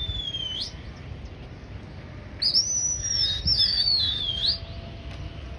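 A pigeon keeper's shrill whistling to his flock in the air: high, warbling calls that slide downward. One fades out just after the start, and a louder one comes about two and a half seconds in and lasts about two seconds.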